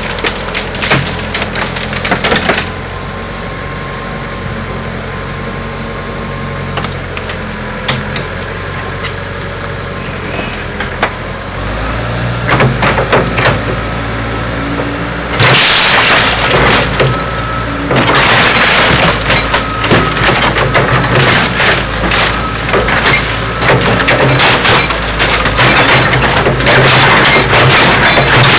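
Backhoe's diesel engine running steadily, then revving up about twelve seconds in as it takes load. From about fifteen seconds on come loud, near-continuous crunching and cracking of metal and breaking glass as the car body is crushed.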